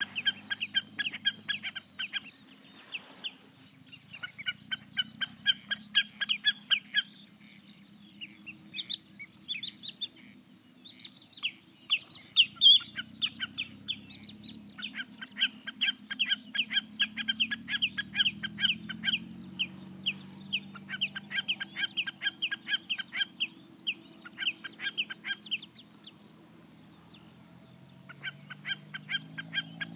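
Common snipe giving its repeated chipping call: runs of rapid, evenly spaced sharp notes, several a second, each run lasting a few seconds with short pauses between. A faint low hum lies underneath.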